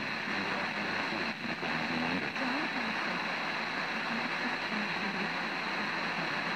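FM radio static: a steady hiss from a car stereo tuned to a weak, fading sporadic-E skip signal, with faint wavering traces of the station's audio buried under the noise.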